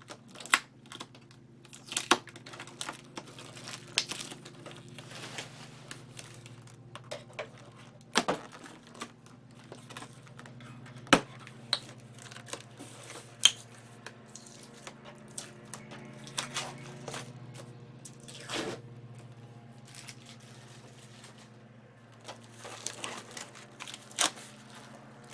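Packing material being handled and pulled off a boxed CRT monitor: crinkling plastic wrap, tearing tape and scattered sharp knocks, over a steady low hum.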